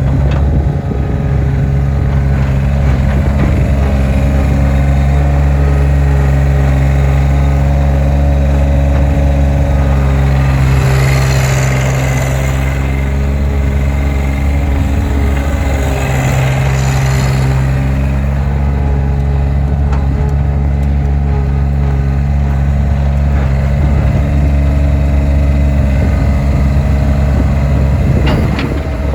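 John Deere skid steer's engine running steadily, with two stretches of added higher-pitched noise about a third of the way in and just past halfway.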